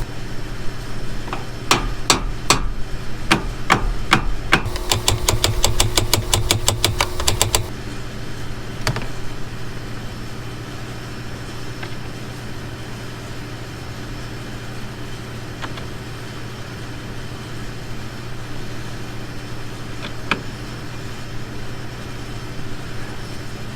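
Hammer striking the steel of a combine's corn head, first several separate blows, then a quick even run of taps for about three seconds, while the auger is knocked forward so it no longer drags. A steady engine hum runs underneath, with one or two faint clicks later on.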